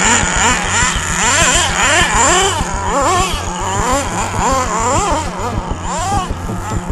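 HPI Firestorm nitro RC stadium truck's small two-stroke glow engine revving up and down in quick repeated throttle bursts as it drives, its pitch rising and falling each time.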